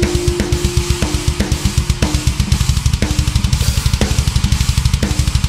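Thrash metal song with a drum-led passage: a rapid, unbroken run of double bass drum strokes, with snare and cymbal hits about twice a second over low held notes.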